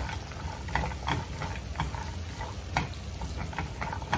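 Mixed nuts toasting in butter in a nonstick frying pan, stirred with a silicone spatula. Irregular clicks and scrapes of the nuts and spatula against the pan sound over a light, steady sizzle.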